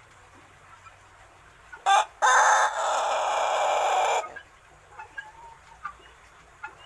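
Young pelung rooster, about six months old and still learning to crow, crowing once: a short note, then a single long crow of about two seconds.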